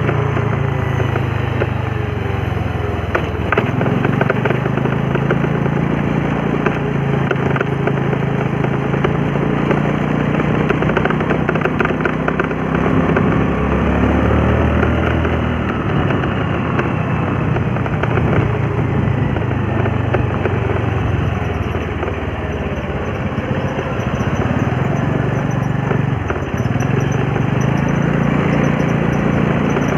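A small motorbike engine running while riding, its pitch rising and falling with the throttle, under a steady rushing noise.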